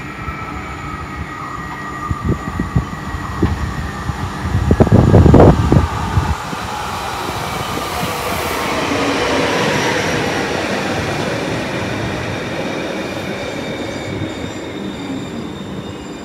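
Two coupled ER75 Stadler FLIRT electric multiple units pulling into a platform and slowing to a stop: the high whine of the electric traction drive falls gently in pitch, and wheel and brake noise swells as the train comes alongside, then eases off. A burst of loud clattering thumps comes about five seconds in.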